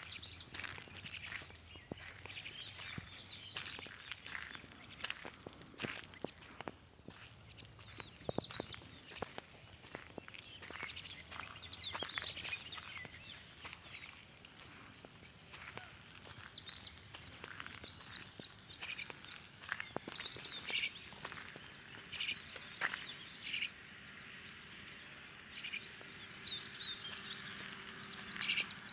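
Small birds chirping in many quick, high-pitched, overlapping calls, over a steady high tone that fades out about halfway through.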